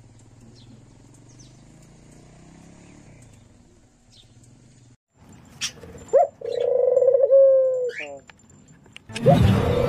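Faint outdoor background with a few short, high bird chirps. After a brief silence comes a loud, drawn-out pitched call with upward pitch glides, from an intro sound effect. Loud intro music starts near the end.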